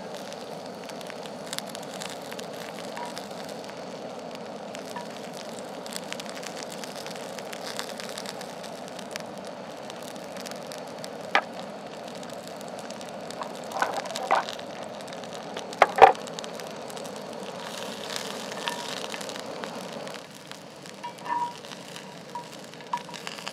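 Beef frying in a cast-iron pan: a steady sizzle with fine crackling. A few sharp knocks come over it, the loudest about two-thirds of the way through.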